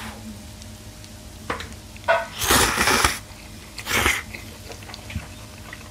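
A person slurping chewy spicy noodles from a bowl: one long slurp about two seconds in, with a short whistly start, then a shorter slurp about a second later, with faint mouth clicks between.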